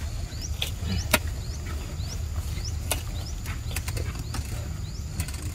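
Outdoor forest ambience: a short rising chirp repeated about twice a second over a steady high thin tone, with a low rumble underneath and scattered sharp ticks, the loudest about a second in.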